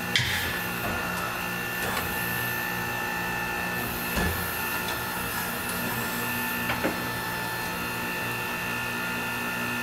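Hunter Revolution tire changer running its automatic demount cycle: its drive motors whir steadily as the tool head works the tire bead off the rim, with a few light clicks and knocks along the way.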